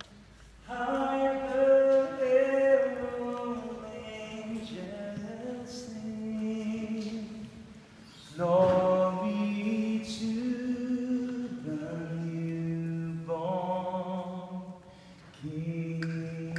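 Gospel choir singing slow, drawn-out phrases of held notes, with short breaths between phrases about halfway through and near the end.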